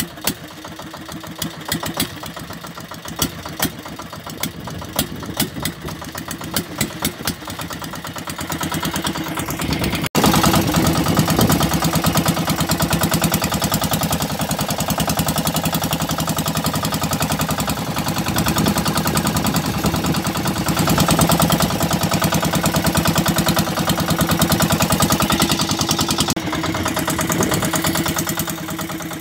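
A fishing boat's engine running steadily, with irregular clicks and knocks over it for the first ten seconds. About ten seconds in the sound breaks off for an instant and resumes louder and steadier, the engine alone.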